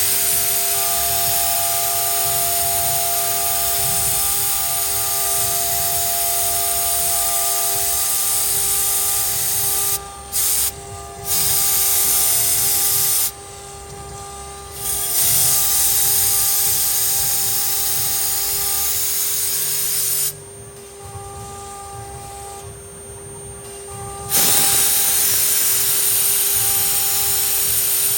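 CNC router spindle cutting an openwork carving, a loud steady hiss over a constant whine. The cutting noise drops out briefly three times, about ten seconds in, around thirteen seconds and for about four seconds past the twenty-second mark, as the bit lifts between cuts, while the whine carries on.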